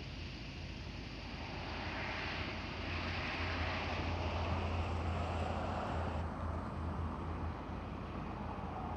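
Outdoor background noise: a vehicle passing, with wind buffeting the microphone.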